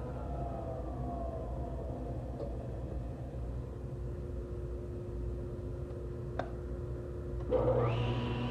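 Woodworking machine motor coasting down, its whine falling slowly in pitch over the first few seconds, over a steady low hum. A sharp click comes about six seconds in, then near the end the machine starts again with a rising whine.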